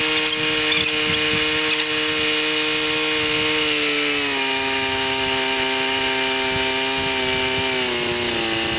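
Kohler KT17 flat-twin engine running steadily; its speed drops in a step about four seconds in and again near the end, as the main (high-speed) mixture screw of its newly fitted carburetor is turned.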